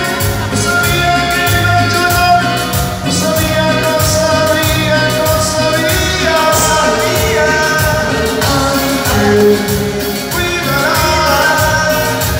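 Live band with a male singer, amplified through the stage loudspeakers, playing a song with a steady beat.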